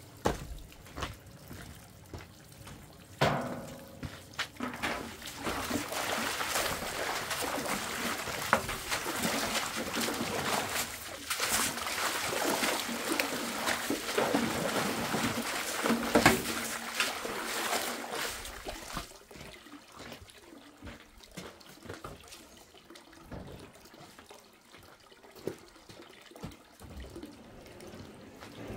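Water running and splashing, with scattered clicks and knocks; it is loudest for about fifteen seconds in the middle and then quietens.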